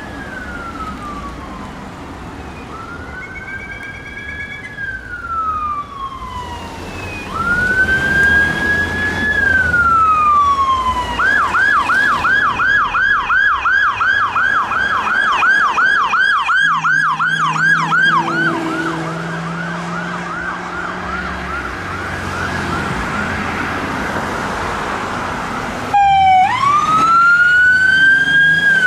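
Electronic police car sirens passing: slow wail sweeps that rise and fall, switching about eleven seconds in to a fast yelp of about three or four sweeps a second. Near the end a second siren starts up close and loud with a rising wail.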